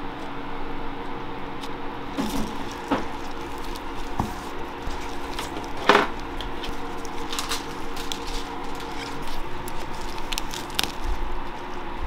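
Food-prep handling sounds over a steady machine hum: a spatula spreading cream cheese on a bagel, then gloved hands laying and pressing lettuce leaves, with soft rustles and clicks and one sharper knock about six seconds in.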